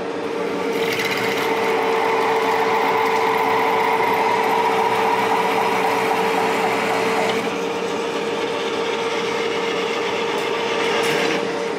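Monarch engine lathe running with a steady hum while a Kennametal carbide insert takes a heavy turning cut on a metal bar, breaking chips off as it goes. The cutting noise comes in about a second in, eases about seven seconds in and stops just before the end, while the lathe's hum carries on.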